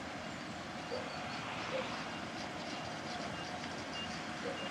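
Bzmot diesel railcar idling at the platform, a steady engine run with no change in speed. Short high beeps sound at irregular intervals over it.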